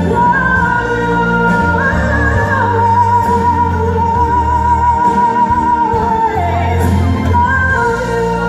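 A female singer performs live with a band, amplified in a large hall, holding a long wavering note through the middle.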